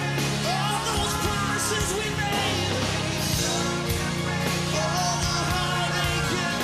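Live hard rock band playing: guitar, bass and drums with cymbals, and a melody line bending over the top.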